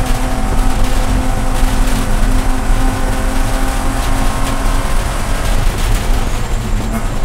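BMW Spec E46 race car's straight-six engine pulling at full throttle and high revs, heard from inside the cabin, with a steady engine note over wind and road noise as speed climbs.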